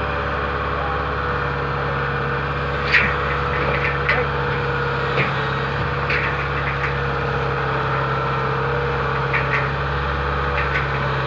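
Rice combine harvester's engine running steadily, with a few brief knocks about three and six seconds in.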